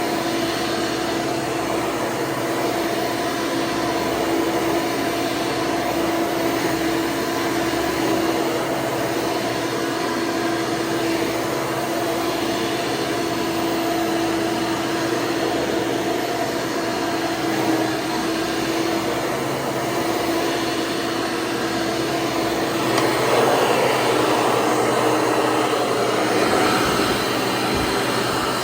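Hoover Encore Supreme hard-bag upright vacuum running steadily, a motor hum with a steady whine, its replacement twenty-blade fan running smoothly. About 23 seconds in the sound gets somewhat louder and fuller.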